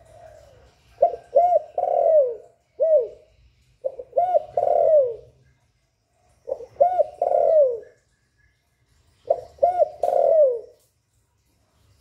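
Spotted dove cooing in four repeated phrases about two and a half seconds apart. Each phrase is two quick arched notes running into a longer coo that falls away at the end.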